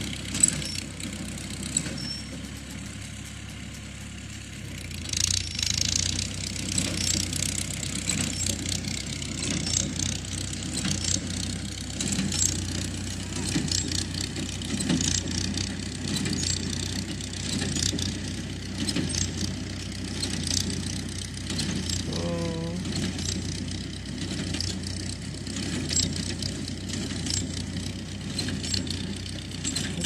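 Kubota L5018 tractor's diesel engine running steadily while pulling a Jones square baler, with frequent sharp knocks and rattles from the baler at work. It gets louder about five seconds in.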